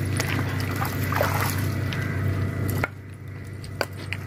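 Pond water sloshing and trickling around a person wading waist-deep and groping under the surface, over a steady low hum. It turns quieter about three seconds in.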